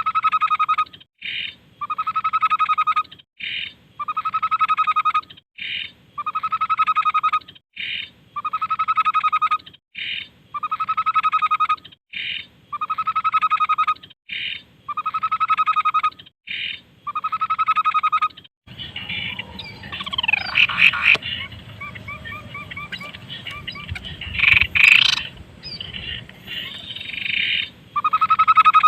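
Tepus babbler song: a longer mid-pitched note followed by a short higher note, repeated evenly about every two seconds. About two-thirds of the way through it changes to quick sweeping, falling whistles and trills over a background hiss, and the repeating phrase comes back near the end.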